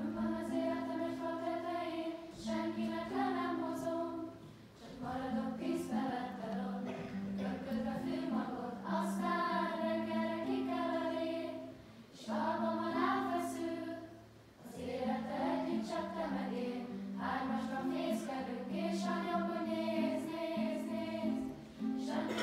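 A song: singing in phrases over a guitar accompaniment of held low notes, with short breaks between phrases.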